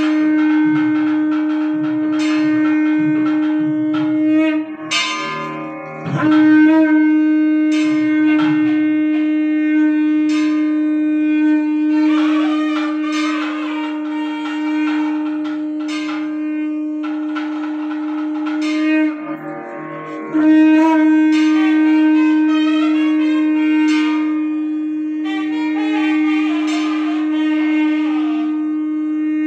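Nadaswaram temple music: a double-reed melody wandering over a steady drone, with the drone dropping out briefly twice.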